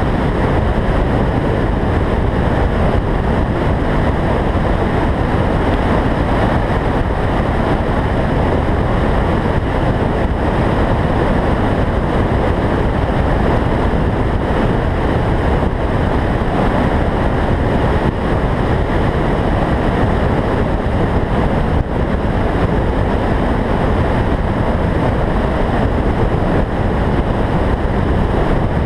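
A car driven at track speed, heard through a roof-mounted camera's microphone: a loud, steady wind rush over the microphone, mixed with engine and tyre noise.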